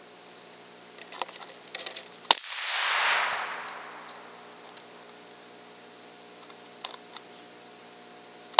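.22 rifle shots: two sharp cracks, one a little over two seconds in and one at the very end, each followed by a swell of hiss that fades within about a second. A steady high whine runs underneath.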